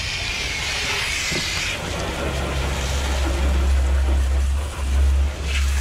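Garden hose spray nozzle rinsing a Corvette C6's wheel and wheel well, the water hissing for the first two seconds and then turning to a lower, rumbling rush against the tyre and rim.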